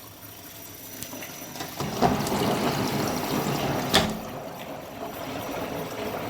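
Water rushing and sloshing inside a Candy Formula Inox P 7.71X washing machine during its Cottons 40°C cycle, swelling about two seconds in. A few sharp clicks, the loudest about four seconds in.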